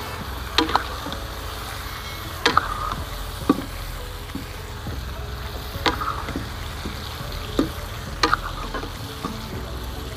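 Stuffed green tomatoes frying in oil in a kadhai while a steel ladle stirs them, with sharp clinks of the ladle against the pan about every one to two seconds.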